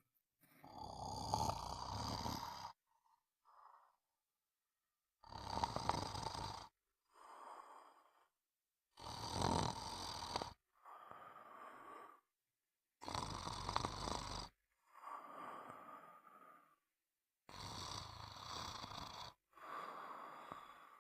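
Snoring in a slow, regular rhythm: five loud snores about four seconds apart, each lasting under two seconds and followed by a quieter, softer breath, with short silences between.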